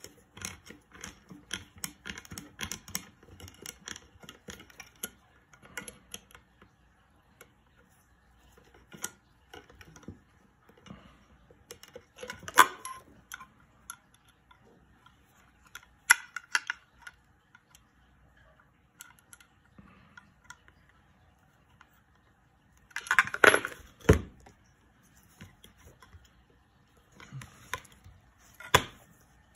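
Handling noise of a stepper motor being fitted to its mount: small metal parts clicking and clattering, with a few louder knocks and rattles, the loudest cluster about two-thirds of the way through.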